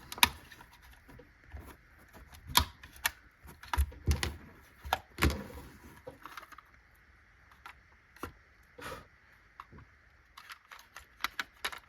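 Irregular small plastic clicks and taps as the body shell of a Bachmann class 205 model train is pried off its chassis with a glue spreader, its clips letting go one by one. The clicks come in a cluster in the first half, then a quieter spell, then another quick run near the end.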